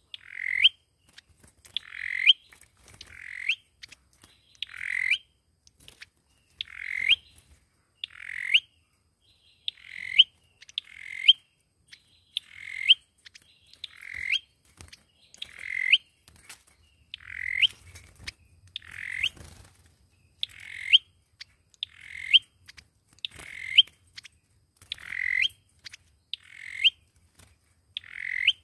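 A sâu dừa bird calling over and over, about once every one and a half seconds. Each call is a short rising note that ends in a sharp upward flick.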